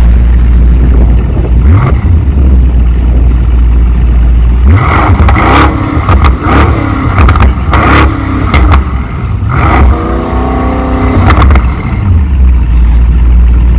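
Mercedes-AMG GT 63 S's 4.0-litre twin-turbo V8 revved while standing still, heard at the exhaust: a deep idle, a single blip about two seconds in, then a quick series of short throttle blips and one longer rising rev about ten seconds in, settling back to idle.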